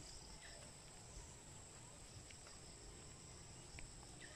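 Near silence with a faint, steady, high-pitched drone of insects such as crickets, and a couple of faint ticks.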